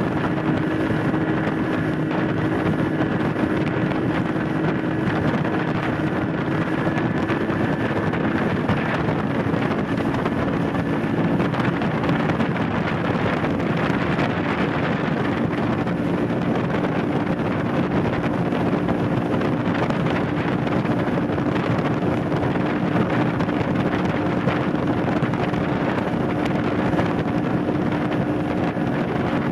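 Motorboat's outboard engine running steadily at cruising speed, with wind buffeting the microphone and water rushing past the hull.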